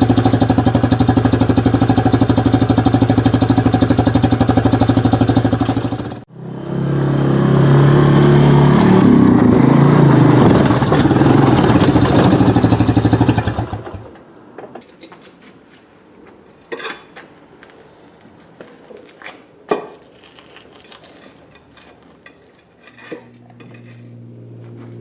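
Quad (ATV) engine running steadily, dropping out briefly about six seconds in, then running harder as it drives, and shutting off about halfway through. After it stops come a few scattered sharp knocks and clicks, and a low steady hum starts near the end.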